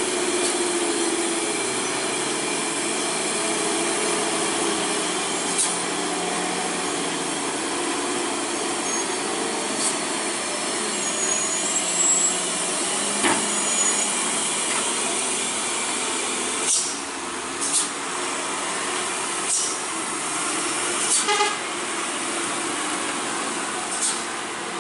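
Heavy trucks' diesel engines running under load as they climb slowly through a steep hairpin bend, a steady mix of engine and road noise. Several short sharp sounds cut through it in the second half.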